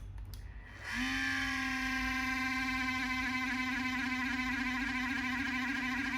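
Steady buzzing hum from an ASRock Taichi motherboard, starting abruptly about a second in after two faint clicks, dipping slightly in pitch as it starts and then holding level. The owner questions it as an abnormal noise from the board.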